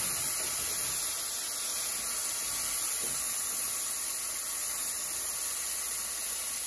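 Cooked beans, onion rings and a dried chile de árbol sizzling steadily in hot oil in a pan.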